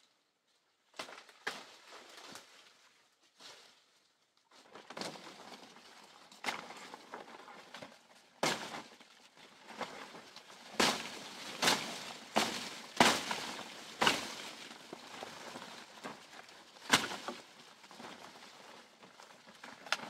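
Dry leaves and twigs rustling and snapping as someone moves through dense forest undergrowth: irregular sharp cracks over a crackling rustle, sparse at first and coming thicker and louder from about halfway.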